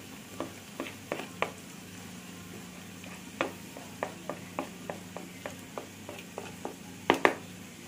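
Onions sizzling in hot oil in an aluminium pressure cooker, with a string of light metal clicks as a steel spoon scoops spice powder and taps against the plate and ladle, and two sharper clicks near the end.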